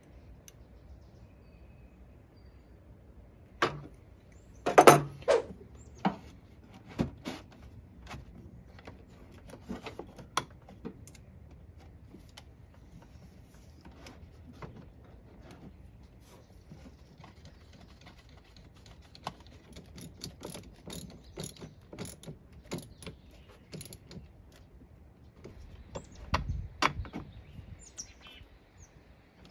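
Hand tools and metal fittings clicking and tapping while an A/C accumulator/drier and its low-pressure switch are fitted in an engine bay: scattered metallic clicks, a louder clatter about five seconds in, and a dull knock near the end.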